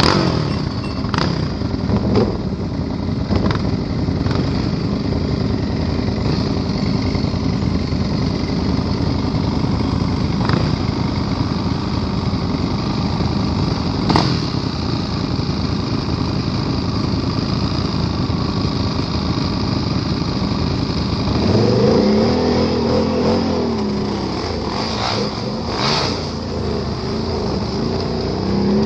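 ATV engine running steadily under way, with a few sharp knocks from the machine going over rough ground. About three-quarters through, the engine revs up, holds, and then drops back.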